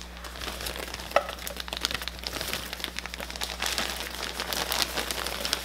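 Mini marshmallows shaken out of a plastic bag into a foil pan: the bag crinkles and a dense patter of small ticks runs on as they drop in.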